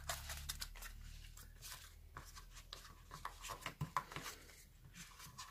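Faint handling noises: scattered light clicks, taps and scrapes of a cardboard presentation box and its small accessories box being handled and fitted into the box's insert.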